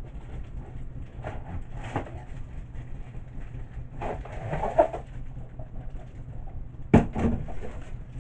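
Handling noise as a light-stand tripod is pulled out of its long box: scattered rustles and knocks, with one sharp, loud knock about seven seconds in.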